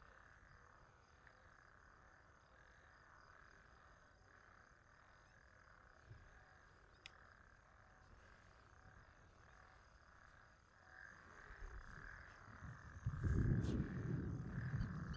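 Night insects, crickets, chirring steadily and faintly. Near the end a low rumbling noise rises and grows loud, covering them.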